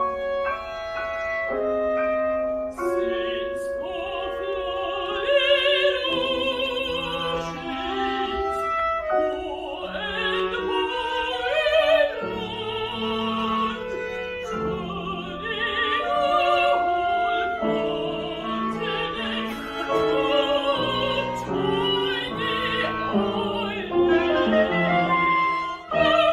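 Live opera: operatic singing with strong vibrato over instrumental accompaniment, the vocal lines sometimes overlapping as if several singers are in at once.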